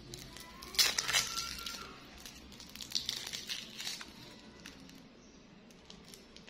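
A foil-lined lollipop wrapper crinkling as it is peeled off and handled, in crackly bursts about a second in and again around three to four seconds in, then going quieter.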